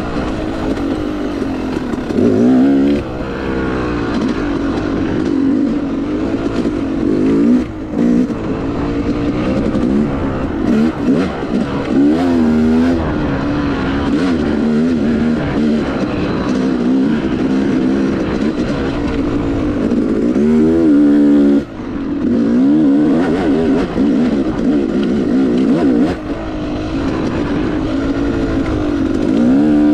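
Yamaha YZ250X 250 cc two-stroke single-cylinder engine under load, its pitch rising and falling again and again as the throttle is opened and rolled off. There are brief throttle cuts, the deepest about two-thirds of the way through.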